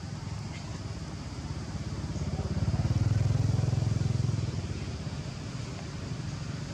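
A motor vehicle's engine passing by: a low hum that grows louder to a peak about three seconds in, then fades away.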